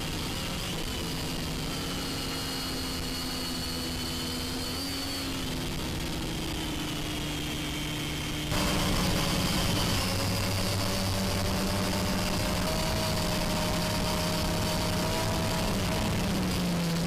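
Small toy quadcopter's motors and propellers whining steadily in flight, several tones drifting up and down as the throttle changes. About eight seconds in, the sound jumps abruptly louder and hissier.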